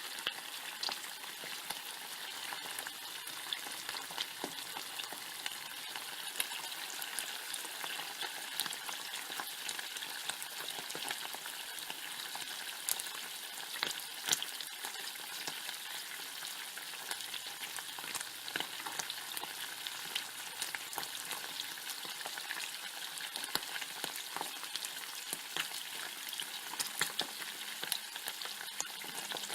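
Bacon frying in a pan: a steady hiss of sizzling fat with many sharp pops and crackles, like a crackling fire.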